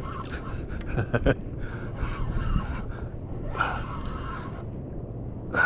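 Steady low rumble of wind buffeting the microphone, with two sharp knocks about a second in and a short hiss a little past halfway.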